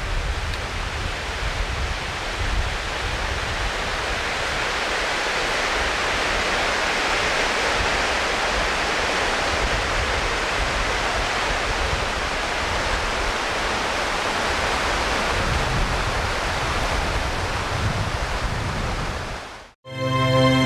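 Steady rush of flowing river water, with some low wind rumble on the microphone. It cuts off suddenly near the end, where music begins.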